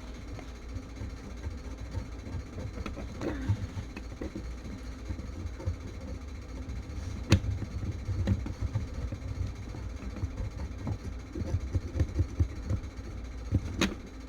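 Small handling knocks and taps of hand tools against a small circuit board during hand soldering, irregular, with two sharper clicks about seven seconds in and near the end, over a steady low hum.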